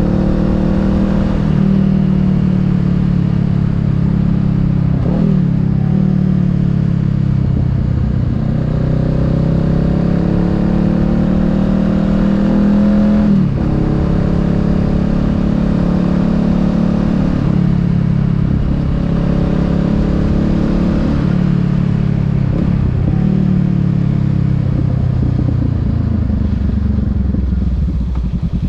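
Honda Rebel 500's parallel-twin engine running under way, its note rising and falling several times as the bike speeds up and eases off, with short dips about every four to eight seconds.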